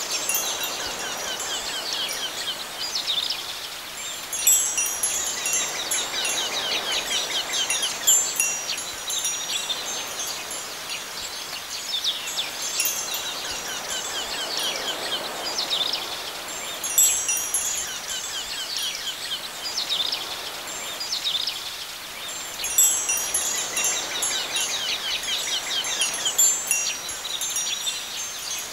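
Wind chimes tinkling again and again, over a soft whoosh that swells and fades.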